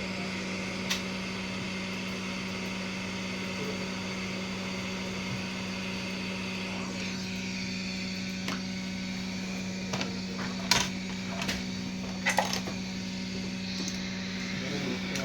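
Steady hum and fan hiss from bench repair equipment, with a few small sharp clicks and taps of hand tools, clustered in the second half.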